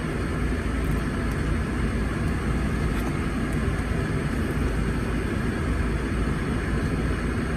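Steady low rumble and hiss inside a car's cabin, with the engine running.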